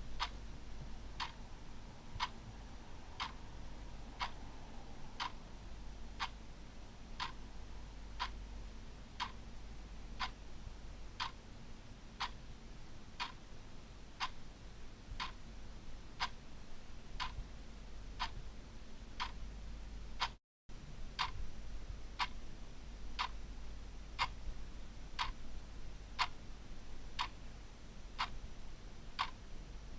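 Clock ticking steadily, one tick a second, over a low steady hum; the sound cuts out for a split second about two-thirds of the way through.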